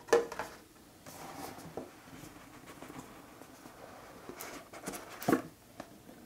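Cardboard box being handled and opened: faint rubbing and sliding of the lid, with a few light taps and knocks, the sharpest about five seconds in.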